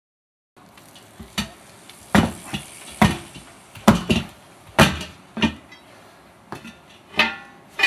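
Steel tire bar knocking and clanking against a steel 16.5-inch wheel rim while the bead of a large mud tire is pried over it, about nine sharp knocks roughly a second apart; the last one rings metallically.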